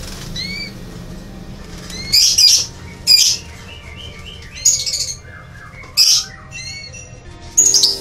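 Canaries in a wire cage flapping and giving short, loud, harsh squawks about once a second, with a few quick chirps between, disturbed by a hand reaching in to catch one.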